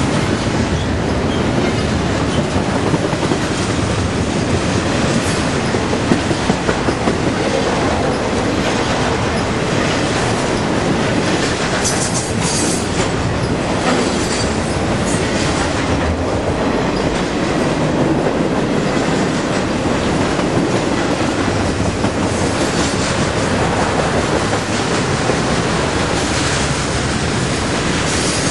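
Norfolk Southern double-stack intermodal freight train of container-laden well cars passing at close range: a steady rumble and clatter of steel wheels on the rails, with a brief higher hiss or screech about twelve seconds in.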